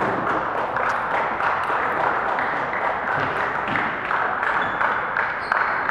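Spectators applauding, many hands clapping steadily.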